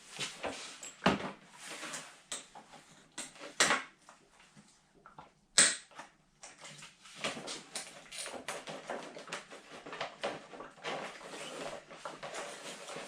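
Knocks, clicks and rattles of hand tools and motorcycle parts being handled, with one sharp snap a little past halfway and a busier run of clicking in the second half.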